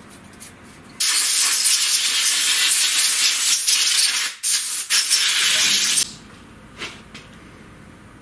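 A compressed-air blow gun hissing in one loud, steady blast of about five seconds, briefly broken just after the middle, that clears chips off a freshly milled part.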